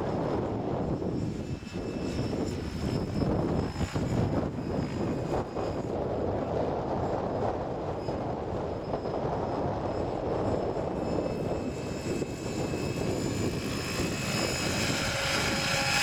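Radio-controlled 700-size scale helicopter with an Airwolf fuselage flying in strong wind: a steady rotor and drive whine over wind rumbling on the microphone. The whine, with several high tones, grows louder near the end as the helicopter passes low.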